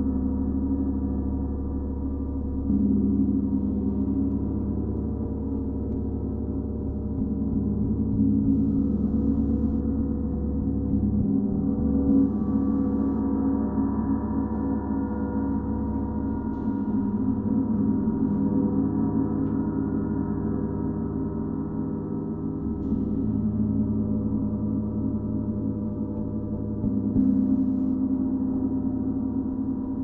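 32-inch Paiste Symphonic gong ringing continuously, a dense wash of many sustained overtones. The sound swells again about every four to six seconds as the gong is played anew.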